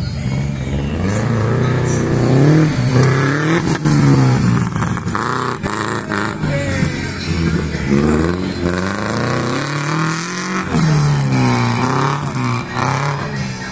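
Off-road vehicle engine revving hard, its pitch climbing and dropping again and again.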